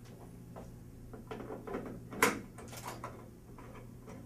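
Small metal clicks and knocks of a hex wrench and cap screws being worked while fastening a metal door-arm mounting bracket, with one sharp knock a little after two seconds in.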